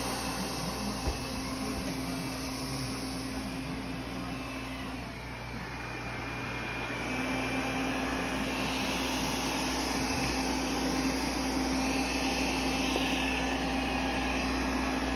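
Thamtu G11 robot vacuum running in automatic cleaning mode, a steady whir from its suction motor. Its hum dips briefly about a third of the way through, then comes back.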